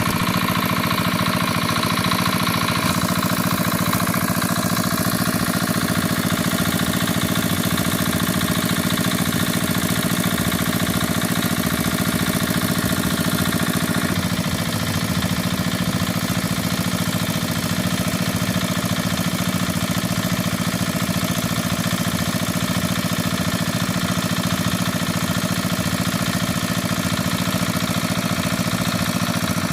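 An engine running steadily at a constant speed, with an even low chugging pulse.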